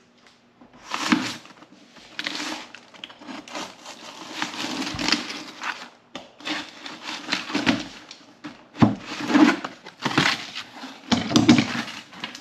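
Cardboard and plastic packaging being cut open with a knife and pulled apart by hand: irregular crackling, scraping and rustling.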